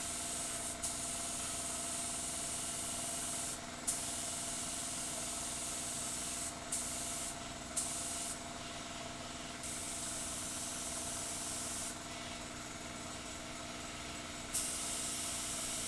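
Compressed-air spray gun hissing as it sprays primer, the airflow cutting off and starting again several times as the trigger is released and pulled, over a steady hum.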